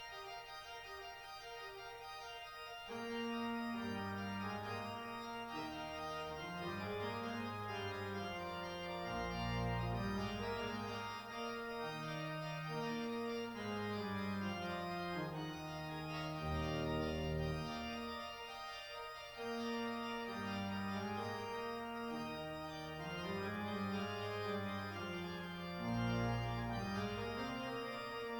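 Organ playing a slow piece in held chords; low bass notes join about three seconds in and move beneath the chords.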